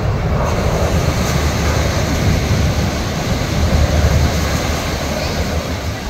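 Steady beachfront ambience: a continuous, mostly deep rumble with no distinct events.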